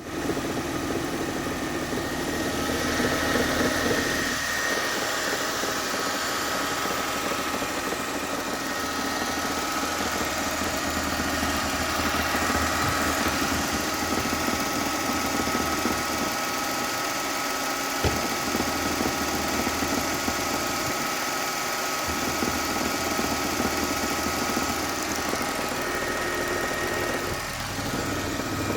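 Mercedes-Benz ML320 engine running steadily at idle with a rattle, over a few thin steady whining tones. A single sharp click sounds about 18 seconds in.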